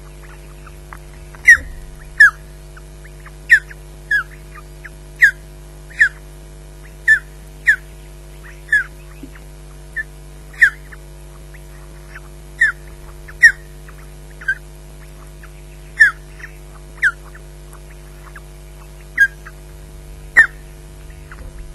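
Osprey calling: a long series of short, sharp whistled chirps, roughly one a second, over a steady hum.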